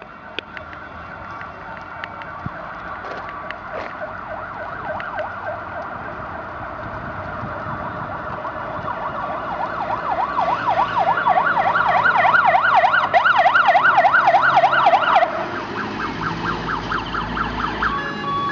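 Fire engine's siren getting steadily louder as the truck approaches. Its wail switches to a fast yelp about halfway through, then to a slower sweep near the end.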